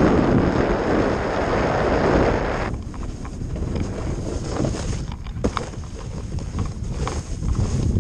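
Wind buffeting the microphone of a camera carried by a downhill skier, over the hiss of skis sliding on packed snow. The rush is loudest for about the first three seconds, then eases, with a few light clicks later on.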